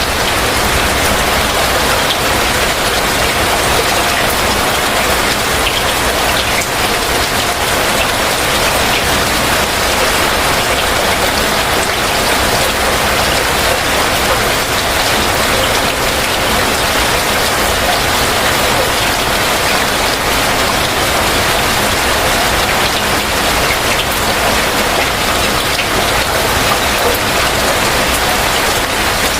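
Heavy rain falling steadily, a dense even hiss of drops with scattered small ticks of individual drops hitting surfaces.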